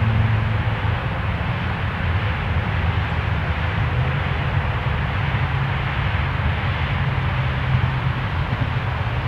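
A steady low mechanical hum under an even hiss, like a distant engine heard across open country.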